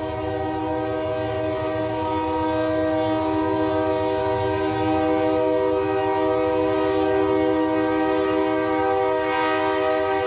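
Diesel freight locomotive's multi-chime air horn blowing one long unbroken blast over the low rumble of the locomotives, getting a little louder as the train approaches.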